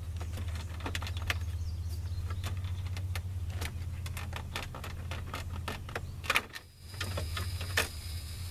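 Scattered clicks and light rattles of hands working at a truck's plastic dash trim, over a steady low hum. The hum cuts out for a moment about six and a half seconds in, then comes back.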